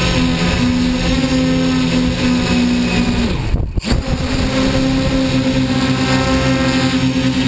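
Quadcopter's electric motors and propellers running with a steady whine, picked up close by the drone's own on-board camera. A little past halfway the sound drops out briefly, then the same steady whine resumes.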